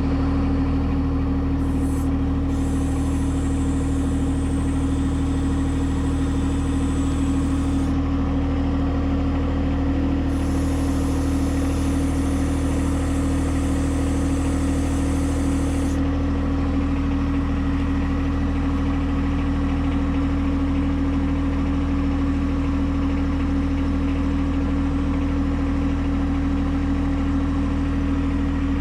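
John Deere 1025R compact tractor's three-cylinder diesel engine running steadily at a constant speed. A higher hiss over it changes a few times in the first half.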